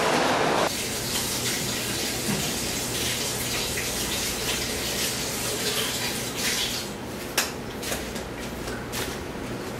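Steady rushing hiss like running water, with a faint low hum under it and a few sharp clicks near the end; a louder noise cuts off abruptly under a second in.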